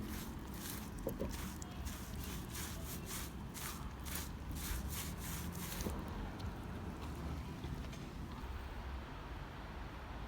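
A run of short scraping strokes, about two a second, which stop about six seconds in, over a steady low rumble.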